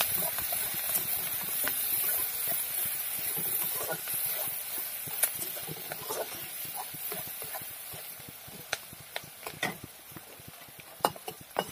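Chopped onions sizzling in hot oil in a kadai, gradually quietening, while a spatula stirs them with scattered scraping taps against the pan.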